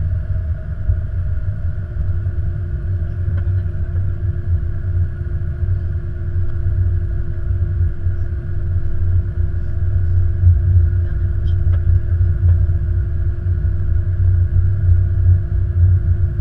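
Airbus A330-200 rolling down the runway after touchdown, heard from the flight deck: a steady deep rumble from the wheels and engines, with a faint steady hum joining about two seconds in and the rumble growing a little louder in the second half.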